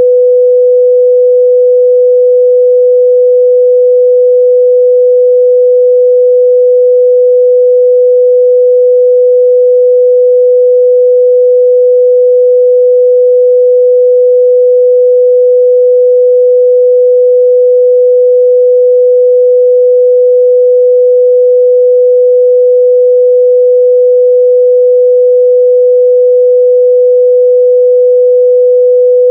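A steady, loud 497 Hz pure sine test tone, one unchanging pitch held throughout.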